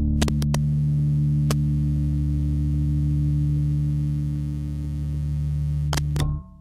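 The song's final chord held as a steady low drone, with a few clicks, cutting off suddenly near the end.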